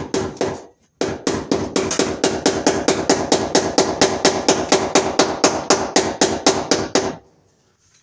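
Hammer tapping a cable staple into a wooden stud to fasten the electrical cable above a switch box. A few quick blows come first, then a short pause, then a steady run of about six blows a second that stops about seven seconds in.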